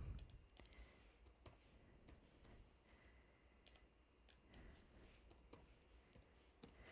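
Faint, scattered clicks of a computer keyboard and mouse as numbers are typed into a program, over near-silent room tone.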